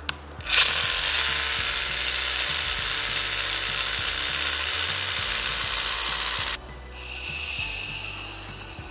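Power drill boring a bolt hole into sandstone: a loud, steady grinding hiss starting about half a second in that stops suddenly after about six seconds. It is followed by a softer airy blowing as rock dust is cleared from the hole through a blow tube.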